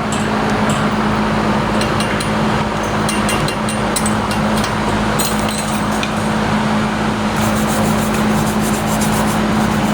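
Stick welding on pipe: the arc crackles and spits irregularly, more densely near the end, over the steady hum of a running machine.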